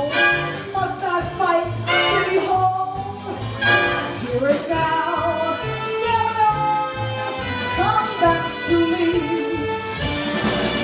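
Jazz-style band music with brass, playing a lively arrangement behind a singer, with some singing heard.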